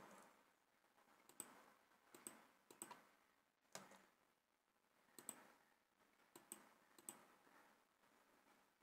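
Faint computer mouse clicks, about seven at uneven intervals, over near-silent room tone.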